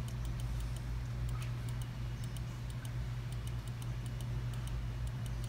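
A steady low machine hum with faint, rapid high-pitched ticking over it, several ticks a second.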